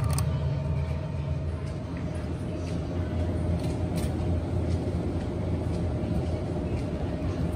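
Steady low hum of supermarket refrigerated display cases, with a few light clicks of a clear plastic fruit pack being handled near the start.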